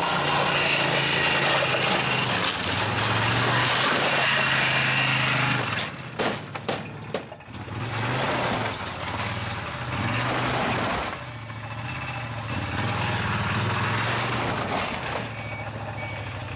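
Motor vehicle engine running as it drives, a steady low hum under loud road and wind noise, with a few knocks about six to seven seconds in.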